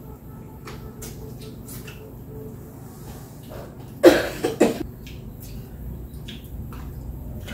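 A person coughing, a quick run of three coughs about four seconds in, with faint scattered clicks around it.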